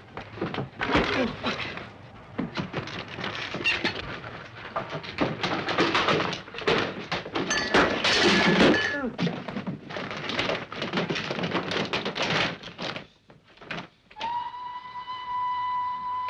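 A fistfight with furniture: a run of thuds, knocks and crashes as bodies hit chairs and the floor, with grunts and a pottery vessel smashing. About 14 s in, a steady high note with overtones comes in and holds.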